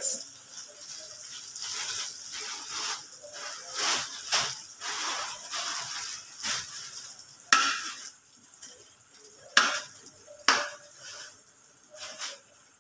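Butter melting and sizzling in a wok, with a slotted spatula pushing it around and scraping and tapping against the pan every second or so.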